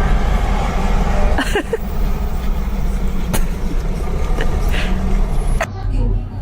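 Steady low rumble of a running vehicle, with a sharp click a little over three seconds in. The sound changes abruptly about a second before the end.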